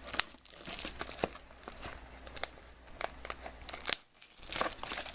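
Plastic shrink-wrap being torn and peeled off a sealed trading-card box, crinkling with irregular sharp crackles and snaps; a louder snap about four seconds in is followed by a brief lull.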